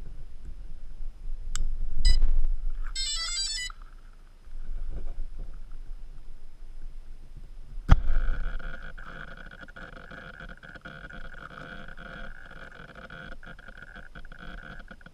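A low rumble with a few clicks, then a rapid run of electronic beeps about three seconds in, like a radio-controlled model's electronics powering up. About eight seconds in comes a sharp knock, followed by a steady high electric motor whine.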